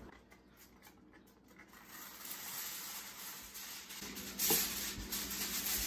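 Reynolds Wrap aluminum foil unrolled from its box and crinkled as it is spread over a roasting pan: a rustling, crackling sound that starts about two seconds in, with a louder crackle past the middle.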